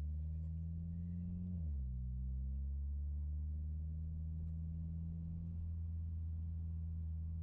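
Mitsubishi Lancer Ralliart's turbocharged 2.0-litre four-cylinder engine droning steadily, heard from inside the cabin while driving. Its pitch dips once, a little under two seconds in, then holds.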